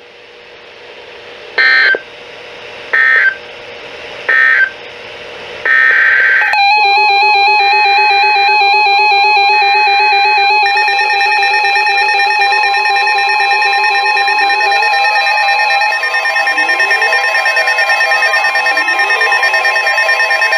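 Emergency Alert System data bursts: three short, shrill digital chirps ending the broadcast warning, then a longer one. About six seconds in, a loud electronic alert starts abruptly, with several warbling tones layered together, and rising sweeps join about once a second near the end.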